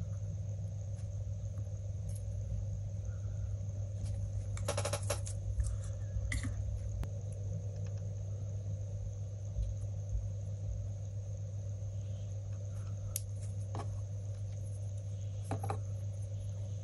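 Light clicks and taps of tweezers and soldering tools being handled on a wooden board while soldering wires to a small electronics module, a quick cluster of clicks about five seconds in and a few single ones later, over a steady low hum.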